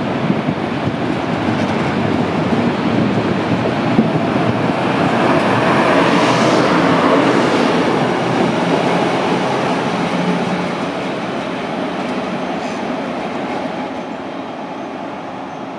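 Regional push-pull train with a DB class 143 electric locomotive at the rear rolling past and pulling away: wheels and coaches running with a few clicks, louder as the locomotive passes about six seconds in, then fading as the train moves off.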